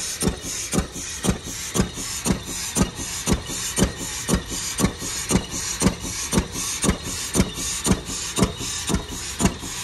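Old single-cylinder flywheel engine driving a tractor, chugging along with sharp, even exhaust beats about two a second.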